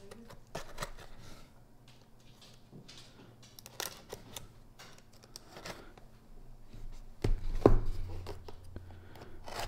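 Blade of an OZ Machine Co. Roosevelt folding knife slicing through packing tape and cardboard along a box's seams, in short scraping cuts and clicks. A louder thump about seven and a half seconds in as the box is set down on the table.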